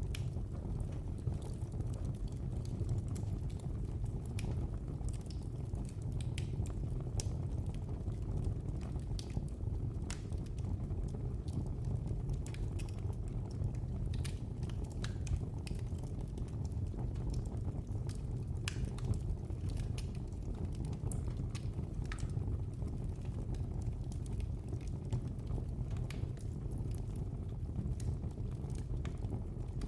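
Fireplace fire crackling: a steady low rumble of flames with irregular sharp pops and snaps scattered all through.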